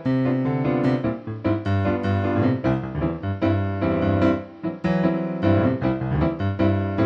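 Background piano music, a steady stream of struck notes and chords.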